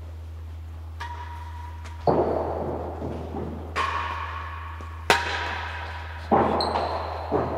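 Real tennis rally: the hard, solid ball struck by rackets and rebounding off the court's walls and floor. About six sharp knocks come a second or so apart, each ringing on in the enclosed stone court's echo.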